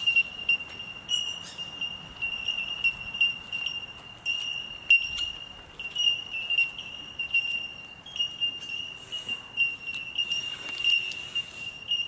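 A chorus of bell miners (bellbirds) calling: many short, clear, bell-like pings on one high note, overlapping into a near-continuous tinkling.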